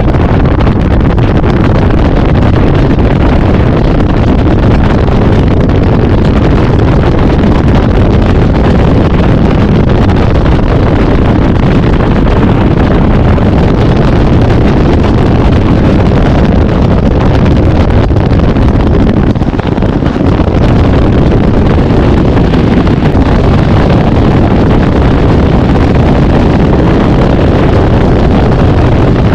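Steady rush of wind on the microphone of a bass boat under way, with the outboard motor and the hull on the water underneath.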